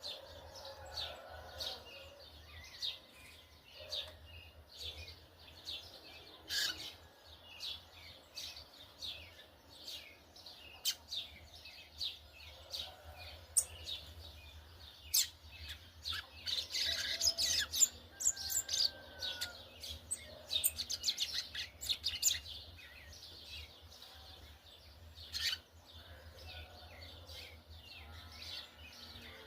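Yellow-bellied seedeater (coleiro-baiano) doing its churrio song: rapid, scratchy chattering phrases of short high notes, coming in spurts with short pauses and densest in the middle.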